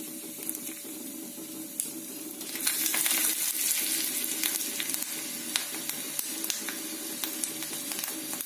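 Hot oil sizzling and crackling in a small tempering pan with popped mustard seeds, scattered pops throughout. About two and a half seconds in, dried red chillies go into the oil and the sizzle turns suddenly louder and stays so.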